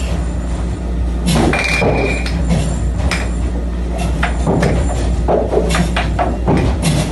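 Scattered knocks, clatter and clinks over a steady low hum, with a brief steady high tone about one and a half seconds in.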